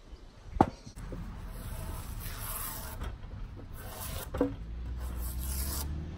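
A draw knife scraping the outer bark off a lime log in two long rasping strokes. A sharp knock comes about half a second in, and another at about four and a half seconds.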